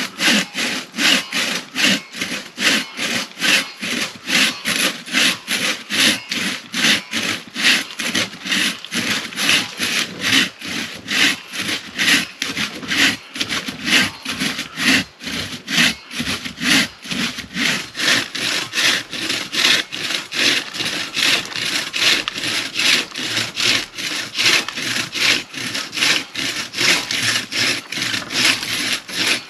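Hand crosscut saw cutting through a fallen log, with steady back-and-forth strokes a little over two a second that do not let up.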